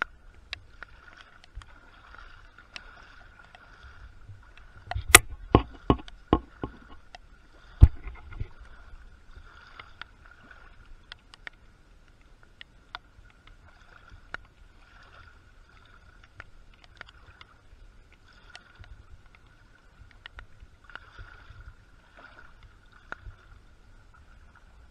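Sloshing and splashing of shallow floodwater, as from someone wading through it. A cluster of louder sharp splashes or knocks comes about five to seven seconds in, and another strong one near eight seconds.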